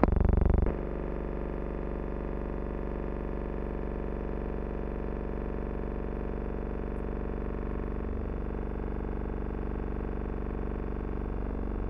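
A steady drone of several held tones, like a sustained synthesizer chord, barely changing throughout. A short louder burst comes right at the start.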